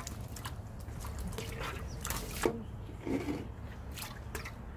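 Water sloshing and dripping in a large metal cauldron as a rubber-gloved hand stirs doenjang into it and lowers pieces of eel in, with a few short sharp splashes.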